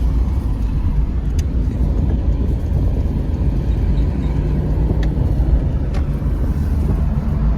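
Car on the move: a steady low road-and-engine rumble with a few faint clicks.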